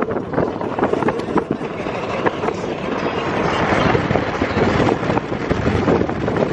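Inside a moving car: steady road and wind noise with crackling wind buffeting on the microphone, growing a little louder about halfway through.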